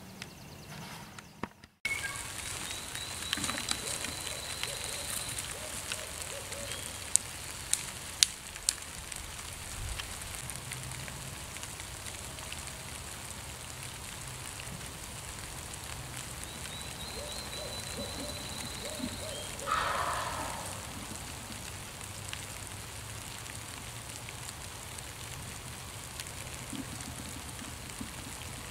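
Steady light rain pattering on dry leaf litter in a forest, with a few sharp clicks or snaps about seven to nine seconds in. About twenty seconds in, a brief call slides down in pitch.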